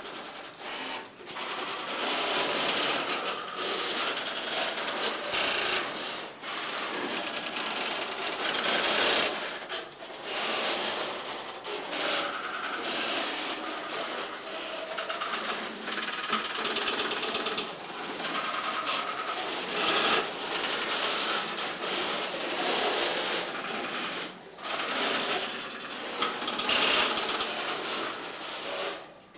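Tesla P51 crossbar telephone exchange at work: a dense, continuous clatter of many relays and crossbar switches clicking and rattling, easing off briefly a few times.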